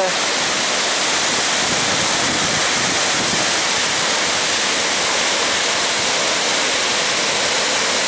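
Tad Gneuang waterfall, two tall streams of water falling onto rock and into the pool below, making a steady, dense rushing hiss with no change in level.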